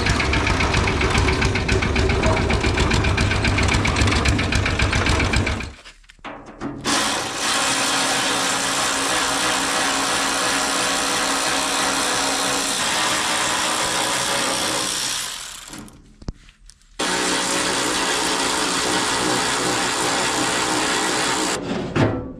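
Small 5–6 horsepower diesel engine of a concrete mixer running steadily, with a tapping that comes from the mixer's drive pulley, not from the engine. After about six seconds the engine sound cuts off, and steady background music follows.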